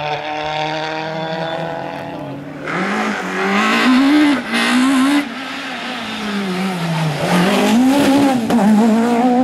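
Rally car engines at full race pace. The first car's engine note falls steadily as it pulls away. After a sudden change, a second car's engine revs hard, its pitch swinging up and down with gear changes, dropping low around the middle and climbing again near the end.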